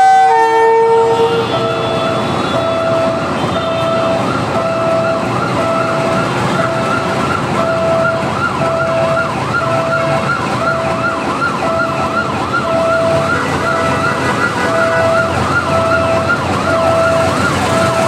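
A train horn blast ends about a second in. It is followed by an electronic warning alarm sounding steadily: a short beep about once a second, with a fast up-and-down warble over it.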